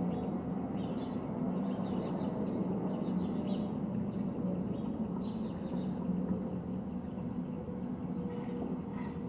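Field recording of city street ambience: a steady traffic rumble with a faint tone slowly falling in pitch and scattered short high chirps.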